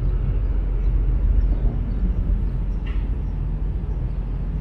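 Steady, loud low engine rumble with a brief sharp clink about three seconds in.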